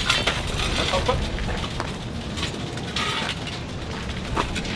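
Steel rebar grill rods clinking and knocking against each other and the cinder-block pit as a whole pig clamped between them is flipped and set back down on the blocks. Irregular sharp metallic knocks come in small clusters.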